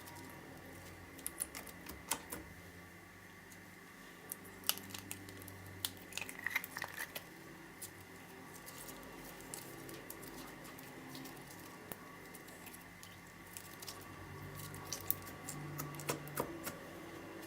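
Slime being mixed and kneaded by hand: soft squishing with irregular sticky clicks and pops, busier in a few short clusters.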